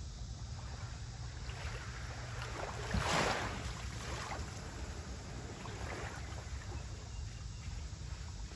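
Small waves lapping on the shore of a calm sea, with one louder wash about three seconds in, over a low rumble of wind on the microphone.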